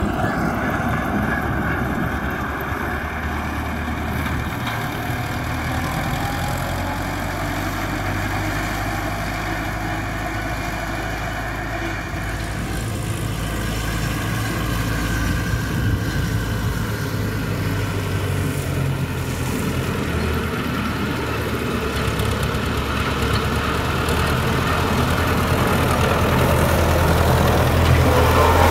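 MTZ-50 tractor's four-cylinder diesel engine running steadily while driving its RK-185 rotary drum mower through standing lucerne. It gets louder over the last few seconds as the tractor comes close.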